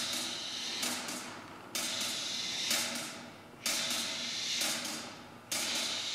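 Improvising chamber ensemble making a hissing, cymbal-like wash that starts abruptly and fades about every two seconds, four times, over a faint low sustained pitch.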